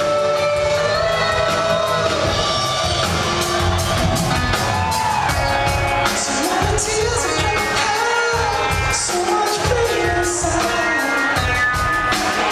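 Live rock band playing: electric guitars and a drum kit with a lead vocalist singing, heard from within the audience in a large hall.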